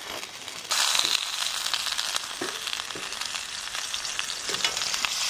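Yellowtail fillet frying in oil in a skillet over a wood fire. The sizzle jumps suddenly louder about a second in, as the fish is laid flat in the hot oil, then goes on as a steady hiss with a few faint knocks.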